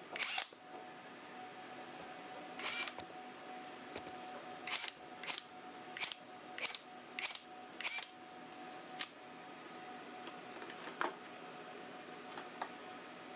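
Chrome-vanadium steel impact sockets being handled: about ten short, sharp metal clicks and clacks as sockets are fitted onto the impact driver's adapter and picked out of their case, several coming in quick succession in the middle. A faint steady hum runs underneath.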